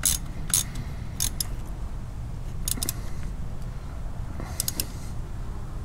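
Socket ratchet clicking in short, scattered strokes as a spark plug is snugged down: a few single clicks, then quick runs of two or three clicks.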